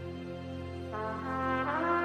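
Trumpet playing a slow worship melody over a soft sustained keyboard pad. About a second in it enters on a held note, then slides up to a higher note and holds it.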